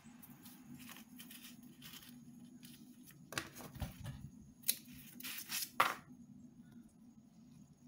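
Craft scissors snipping glitter washi tape: a handful of short, sharp snips and rustles from about three to six seconds in, the last ones loudest.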